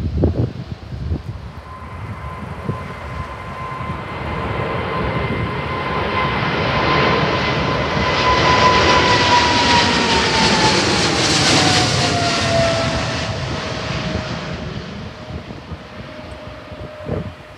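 Boeing 777 jet airliner climbing out after takeoff at full thrust: a broad jet engine rumble that swells as it passes overhead, with a steady whine that drops in pitch as it goes by, then fades away.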